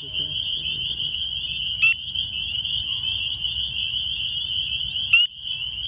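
Chorus frogs calling in a dense, unbroken chorus: males' breeding calls to attract females. A louder, short rising call from a nearby male stands out twice.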